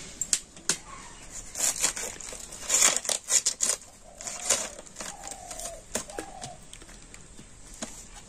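Crisp crunching and tearing of fresh cabbage leaves being stripped off and cut against a boti blade, in irregular bursts.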